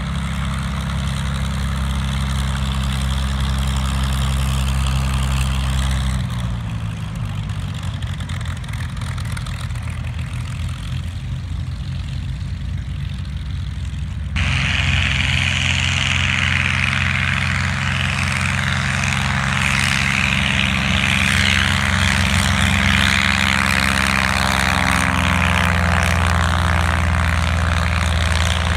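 Piston engines of vintage propeller warplanes running at takeoff power. The engine note drops slightly about six seconds in, and about halfway through a louder, raspier engine cuts in abruptly.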